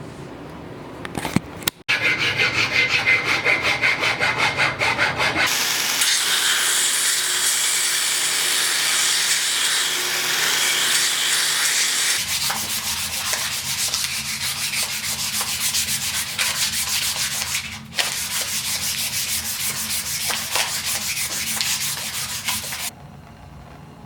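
Wire brush scouring the forged 1045 steel hammerhead to give it a brushed finish: a harsh, continuous scratching, in several stretches that start and stop abruptly, ending shortly before the end.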